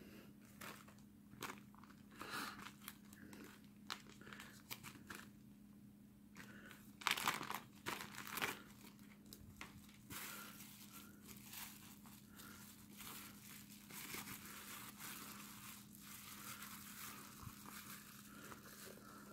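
Plastic zip bags and bubble wrap crinkling as they are handled and unwrapped: scattered crackles at first, a louder burst of rustling about seven seconds in, then near-continuous crinkling.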